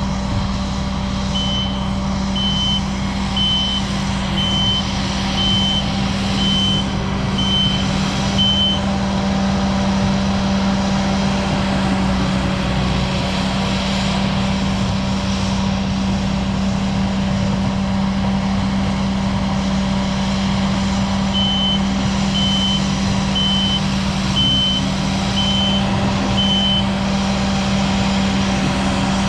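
Skid steer's engine running steadily, with its backup alarm beeping about once a second while it reverses: a run of eight beeps near the start and another run of six later on.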